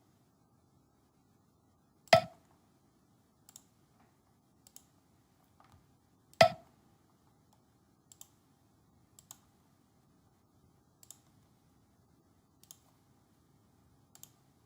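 Computer mouse clicking: two sharp, louder clicks about two and six seconds in, with fainter clicks scattered between and after.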